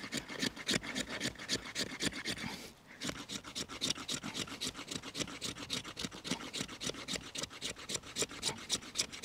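Carbon-steel knife spine scraping a piece of resinous fatwood in quick, even strokes, about five a second, with a brief pause about three seconds in.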